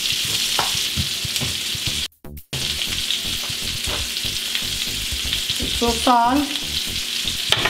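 Bacon, red onion and pineapple slices sizzling in a frying pan: a steady frying hiss that cuts out briefly about two seconds in. A few light knocks of a knife on a wooden cutting board come in the first second or so.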